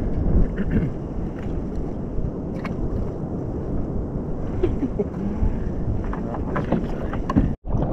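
Wind rumbling on the camera microphone over water sloshing against a kayak's hull, with scattered light clicks and knocks of fishing rods and a reel being handled. The sound cuts out for a moment near the end.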